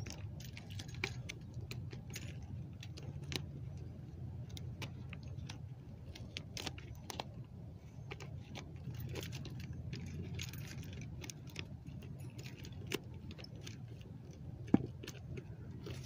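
Scattered light clicks and rattles over a steady low rumble, with one sharper, louder click near the end.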